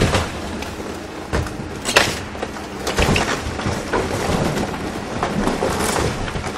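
Wood-frame house being torn apart by an excavator: timber cracking and debris crashing down, with sharp cracks about two and three seconds in, then a longer stretch of splintering and falling rubble. The excavator's engine runs as a low hum underneath.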